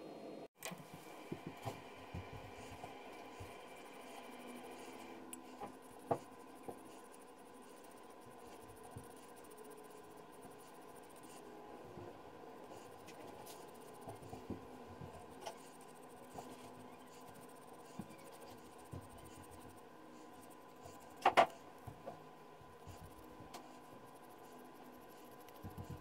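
Wool dauber dabbing and rubbing dye onto a leather sheath, a faint scratchy rubbing broken by small taps. About two-thirds of the way through there is a sharp double knock.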